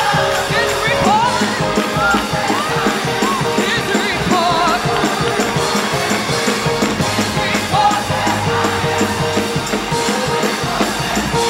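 Live gospel music: a church choir singing with organ and drums over a steady beat.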